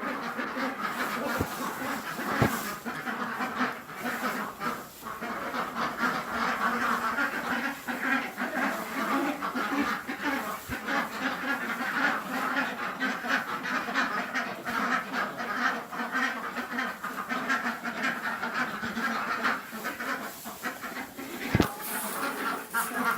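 A flock of farm ducks quacking without letup, with a couple of sharp knocks, one early and one near the end.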